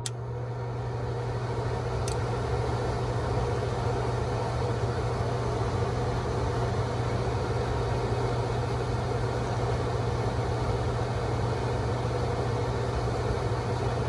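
Trane gas furnace starting its heating cycle: the draft inducer motor spins up over the first few seconds and then runs steadily with an electrical hum and a rush of air. There is a sharp click at the start and another about two seconds in.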